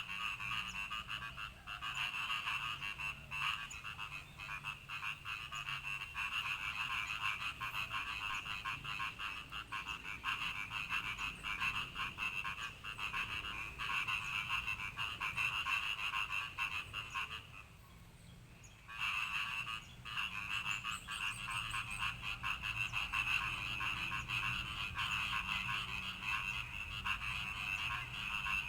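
Frogs calling: a rapid, dense croaking that stops for about a second and a half roughly two-thirds of the way through, then starts again.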